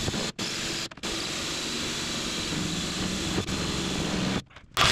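Cordless drill spinning a hole saw through thin aluminium sheet, a steady whir with the cutting teeth grinding. It stops briefly twice in the first second, then runs on before stopping near the end.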